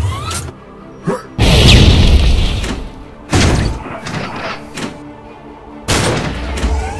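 Heavy blasts from a hovering gunship's guns: three big ones about two seconds apart, the first the loudest and longest, with a couple of smaller hits between. Steady background music plays under them.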